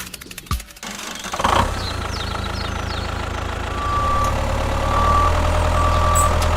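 Heavy vehicle engine idling steadily, starting about a second and a half in, with a beeper sounding three short times in the second half.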